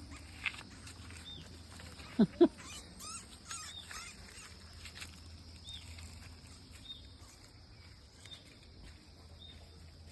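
Faint, short, high squeaks of a mouse, a few seconds apart, while a cat plays with it. Two short, loud, low sounds come about two seconds in, one right after the other.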